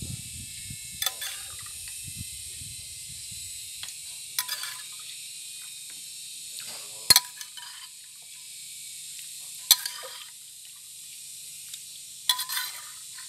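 Steel ladle clinking against a pressure cooker and bowl as boiled beef tripe and broth are scooped out. There are about five sharp, ringing clinks a few seconds apart, the loudest about seven seconds in, over a steady high hiss.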